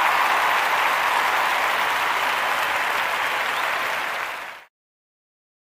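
A crowd applauding, a steady even clapping that dies away quickly and cuts to silence about four and a half seconds in.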